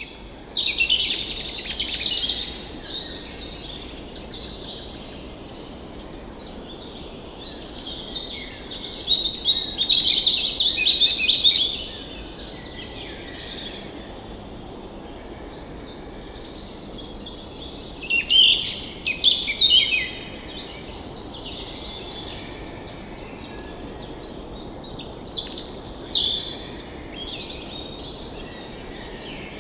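Several songbirds singing and chirping in bursts, loudest near the start and again about a third, two thirds and most of the way through, over the steady rush of a flowing forest stream.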